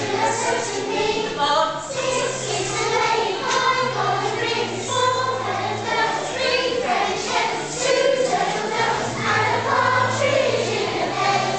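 Children's choir singing together, with a low instrumental accompaniment sounding steadily beneath the voices.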